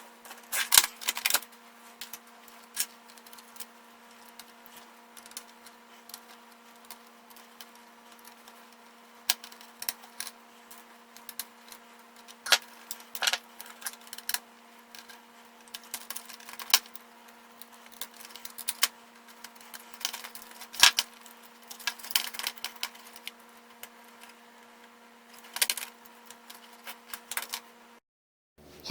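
Irregular clicks and taps of plastic and small metal parts being handled and pried apart as a laptop is disassembled, over a steady low electrical hum.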